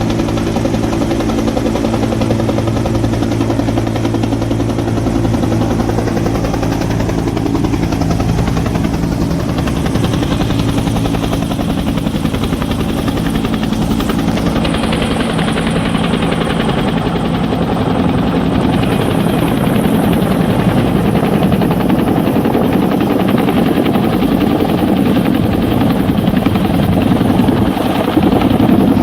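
A rescue helicopter running loud and steady close by. About a third of the way in, its even hum turns into a rougher, rushing sound.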